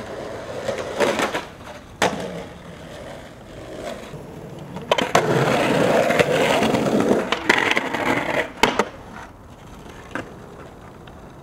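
Skateboard wheels rolling over rough concrete, louder through the middle, with sharp wooden clacks of the board striking the ground, two close together near the end.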